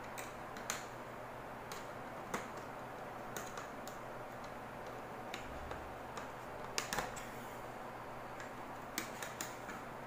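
Irregular light plastic clicks and taps, a dozen or so, as a wall switch and its plastic mounting frame are handled and pressed into place on the box, over a faint steady hum.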